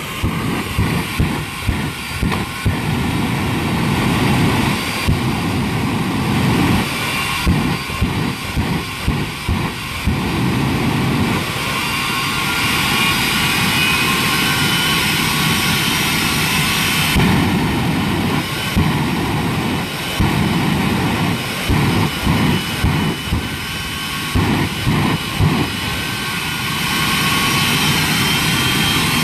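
Jet engine of a jet-powered fire truck running, a steady high turbine whine over a heavy rush of exhaust that surges and eases, as its blast sets a car burning.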